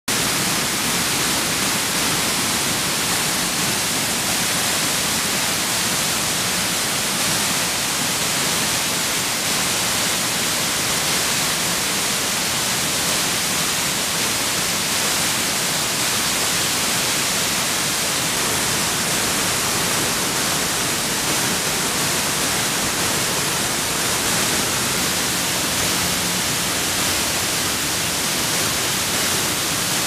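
Waterfalls pouring into a pool: a steady, even rushing hiss of falling water.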